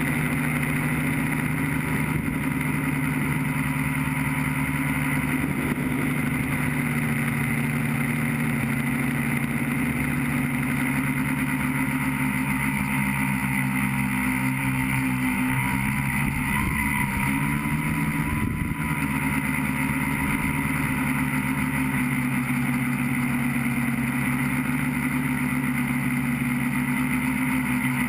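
A tricopter's three electric motors and propellers whirring steadily, heard from on board the aircraft. Their pitch wavers for a few seconds about halfway through as the motor speed changes.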